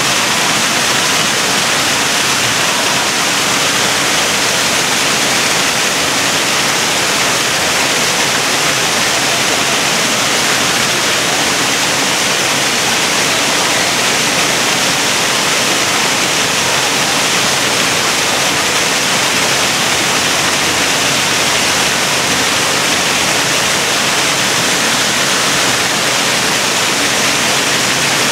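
Waterfall rushing steadily, a constant even hiss of falling water with no breaks.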